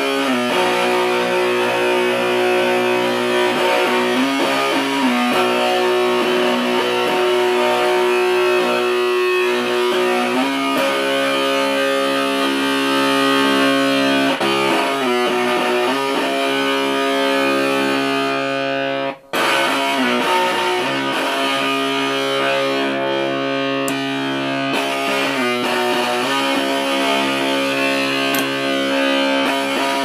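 Electric guitar played through a Fat Bird fuzz pedal, a handmade pedal built on the Fuzz Factory circuit: thick, fuzzy sustained notes and chords that change every few seconds. The sound cuts out for an instant about two-thirds of the way through.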